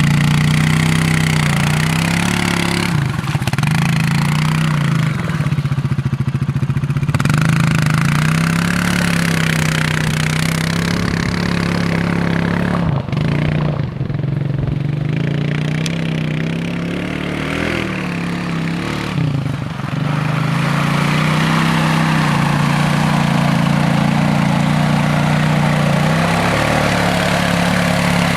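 Small ATV engine running as the quad is ridden through a mud lot, its note rising and falling with the throttle and dropping briefly a few times.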